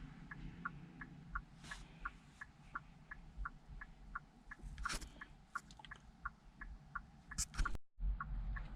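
Steady light ticking, about three ticks a second, with a few louder clicks in between; the sound cuts out briefly near the end.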